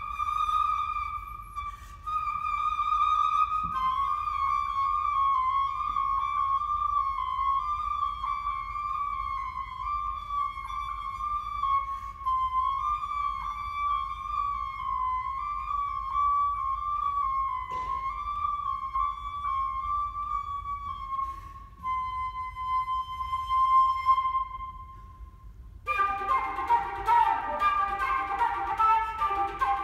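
Solo concert flute playing a long high note that wavers in small steps, then a quieter held note that fades away. About four seconds before the end it breaks into a burst of rapid, busy notes with a lower, rougher layer beneath.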